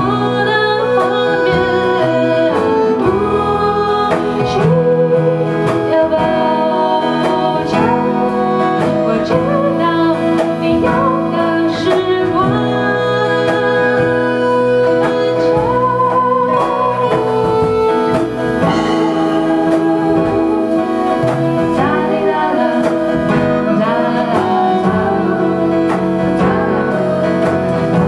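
Live acoustic music: guitar with a bowed string instrument and a singing voice, playing a song at steady loudness.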